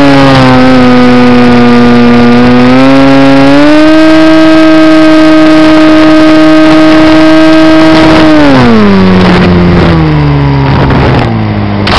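Loud whine of a model aircraft's motor and propeller, picked up by its onboard camera, still running after the craft has come down in tall weeds. The pitch dips a little, rises about a third of the way in and holds, then falls away over the last few seconds as the motor winds down and cuts off.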